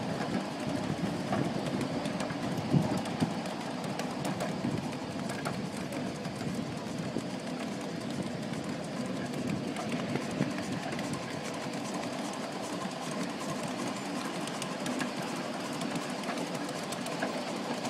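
Cars of a ride-on miniature railway rolling along the track: a steady rumble of small steel wheels on rail with scattered clicks from the rail joints, and one sharper knock about three seconds in.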